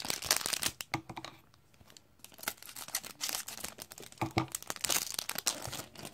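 Wrapper of a 2001-02 Topps Stadium Club hockey card pack crinkling and tearing open in the hands, in several short crackly spells: at the start, again about halfway, and longest near the end.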